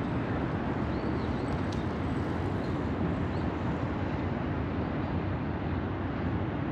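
Steady low rumble of city vehicles, with two faint high chirps about one and three and a half seconds in.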